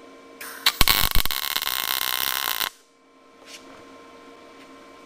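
MIG welder striking an arc to lay a tack weld on square tubing: a few sharp pops at the start about half a second in, then a steady crackle for about two seconds that cuts off suddenly. The welder is set to a really low voltage, to tack in and fill a gap.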